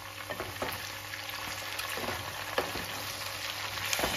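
Pork, potatoes and tomato sizzling in the pork's rendered fat in a wok, stirred with a wooden spatula that gives a few light scrapes and knocks against the pan.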